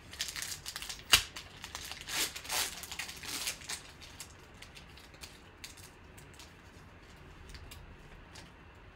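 A foil trading-card pack, a 2013 Panini Crown Royale football pack, torn open by hand, its wrapper crinkling, with one sharp crack about a second in. The crinkling thins out after about four seconds into scattered light ticks as the wrapper and cards are handled.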